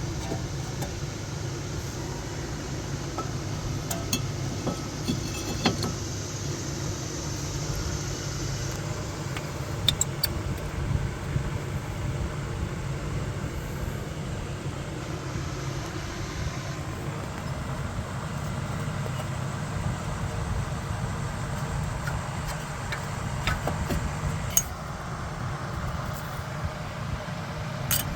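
Scattered metal clinks and taps as brake parts are handled and fitted on a car's front wheel hub, a few sharp ones standing out, over a steady low background hum.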